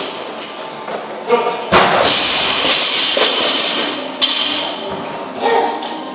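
Music playing over the thuds and clanks of weights on a gym floor, with the loudest heavy thud about two seconds in and another sharp knock near the middle.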